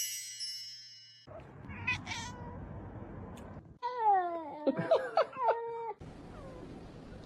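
A domestic cat meowing: a run of drawn-out meows with falling, wavering pitch about four seconds in. A ringing chime-like tone fades out in the first second.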